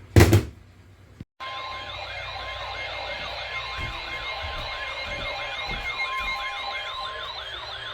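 A short loud thump just after the start, then, about a second and a half in, an electronic siren begins in a fast yelp, its pitch rising and falling about three times a second, with a thin steady tone sounding on and off beneath it.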